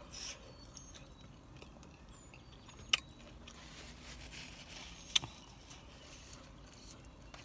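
Quiet chewing inside a car, with two sharp clicks a couple of seconds apart over a low steady hum.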